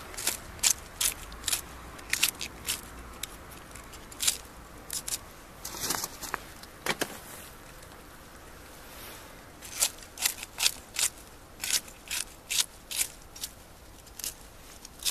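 Kitchen scissors snipping green chili peppers into a pot: a run of short, crisp snips, a pause of a couple of seconds midway, then more snips.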